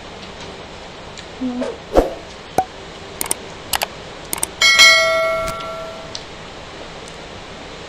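Subscribe-button overlay sound effects: a few quick clicks, then about five seconds in a bell ding that rings on and fades over about a second, the loudest sound here. Behind it is a steady hiss of rain.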